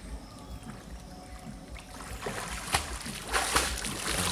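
Water splashing as a person swims, the splashes growing louder and more frequent about two seconds in.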